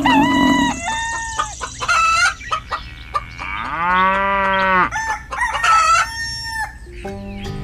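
Chicken calls laid over the scene: a hen clucking in short calls, and a rooster crowing once in one long rising-and-falling call about halfway through.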